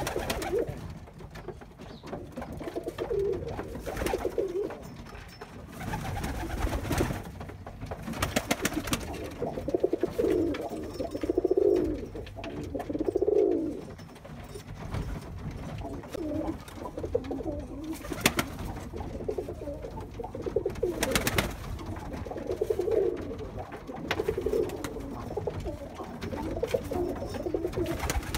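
Domestic pigeons cooing again and again, low rolling coos of about a second each. There are a few brief bursts of wing-flapping.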